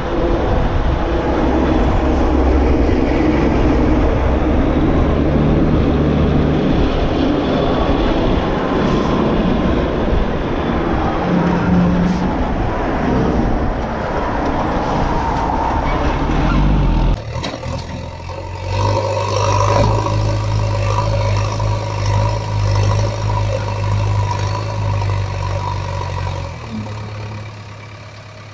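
Heavy truck engine sound, running continuously, that changes abruptly about two-thirds of the way through to a different, steadier engine drone with a low hum.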